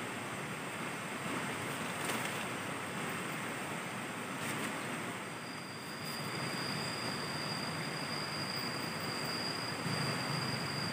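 Steady rushing of a river flowing close by. About halfway through, a thin, high, steady tone joins it.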